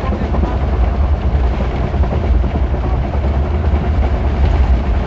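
Express passenger train running along the track, heard from inside a coach: a steady, loud running noise with a deep rumble.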